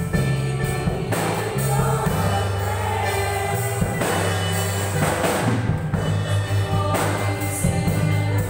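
Live worship song: women's voices singing together into microphones over keyboard, steady bass notes and a drum kit, with cymbal crashes every couple of seconds.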